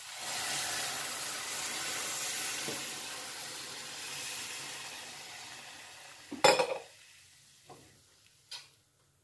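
Milk poured into a hot kadai of ghee-fried grated carrots, hissing and sizzling as it hits the pan, the sizzle fading over several seconds. A loud metal clank comes about six and a half seconds in, then two lighter knocks.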